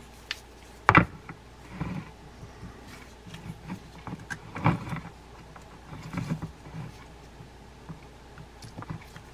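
Handling clicks and knocks of a Penn 525GS baitcasting reel, its graphite frame and side-plate parts being turned and pushed together as the bearing is fitted onto the main shaft. There is a sharp knock about a second in and another near the middle.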